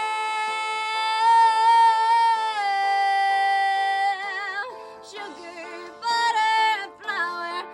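A female voice sings a long held note over an instrumental backing, stepping down in pitch about two and a half seconds in. It then moves into shorter notes with a wide vibrato.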